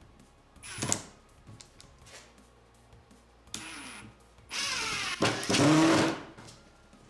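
Ryobi P238 brushless impact driver running in third gear on a 3-inch drywall screw: a brief burst about a second in, then a longer run from about 3.5 s that spins up to full speed for about a second near the end. The bit is stripping the screw head.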